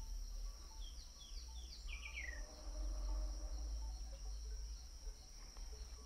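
Faint insect chorus, a steady high trill, with a few short falling bird chirps about one to two seconds in, over a low hum.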